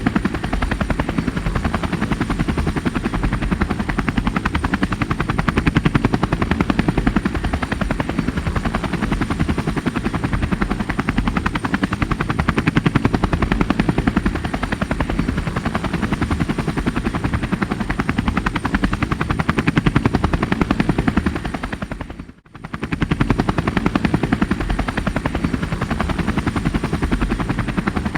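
Helicopter running steadily, its rotor blades chopping in fast, even pulses over the engine noise. The sound briefly dips out for under a second about three-quarters of the way through, then comes back.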